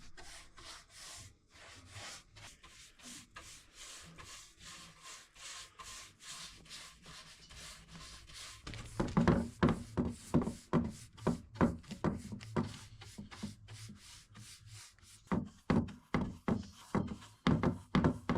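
Rhythmic back-and-forth rubbing on wood, about two strokes a second. The strokes are light at first and become louder and heavier about halfway through.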